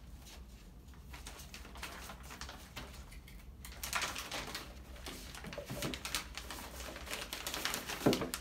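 Plastic FedEx shipping bag crinkling and rustling as a cardboard box is slid into it, busiest in the second half, with a sharp knock near the end.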